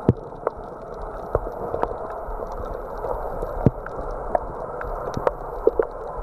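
Underwater ambience: a steady muffled water rush with scattered sharp clicks and pops every half second or so.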